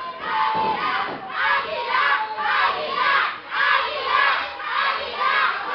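Lucha libre crowd chanting and shouting in a steady rhythm, about two shouts a second, many voices together.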